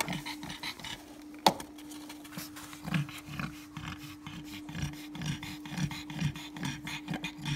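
Pregnant black pug panting quickly and rhythmically in labour, over a steady low hum, with one sharp knock about one and a half seconds in.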